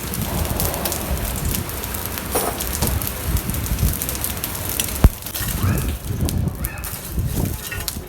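Steady crackling noise with a low rumble, with a single sharp knock about five seconds in and a few short pitched calls after it.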